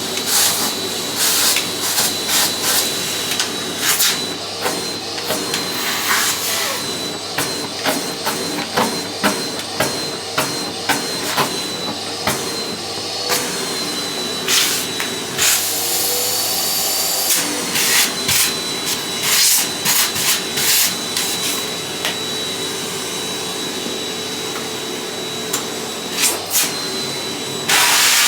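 Miele vacuum cleaner running with a steady whine, with frequent sharp clicks and knocks as the nozzle works the floor. A louder, even hiss sets in just before the end.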